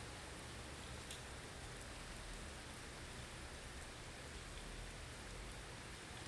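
Blizzard ambience: a steady hiss of wind-driven snow with a low rumble underneath, even throughout, with one faint tick about a second in.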